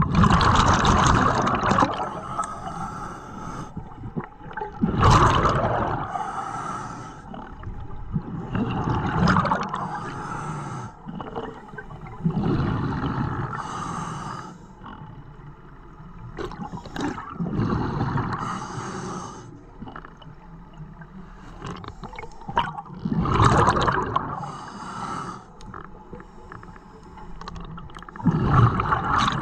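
A scuba diver breathing through a regulator underwater: a slow, regular cycle roughly every four to five seconds, each breath a loud gurgling rush of exhaled bubbles paired with a softer hiss of air.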